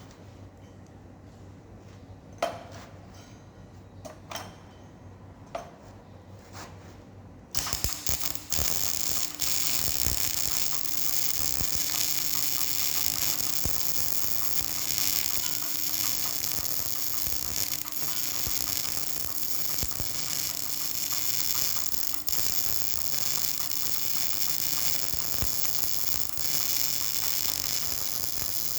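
A few scattered knocks, then, about seven and a half seconds in, an electric welding arc strikes and crackles steadily.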